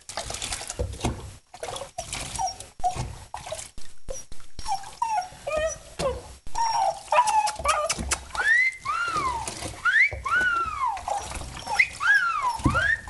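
Wolf-dog hybrid whining in the bath: a string of high, rising-and-falling whines that come thicker and louder over the last several seconds. Before that, knocks and splashing of water as the dog moves about in the tub.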